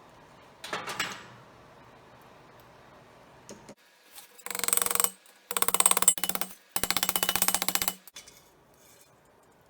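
A hand tool scraping across a workpiece: a short scrape about a second in, then three long strokes from about halfway, each with a fast ticking texture.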